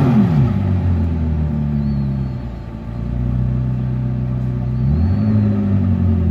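McLaren supercar's twin-turbo V8 at low revs as the car creeps forward. Its pitch falls away from a blip at the start, holds steady, and rises briefly about five seconds in.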